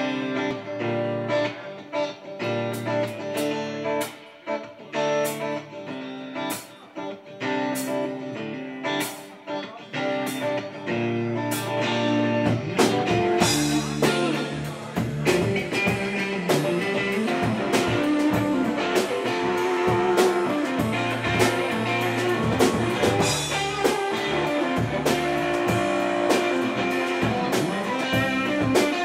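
Live band playing an instrumental passage on electric guitar, bass guitar, keyboard and drum kit. It starts sparse with separate drum hits, then the full band comes in louder about twelve seconds in.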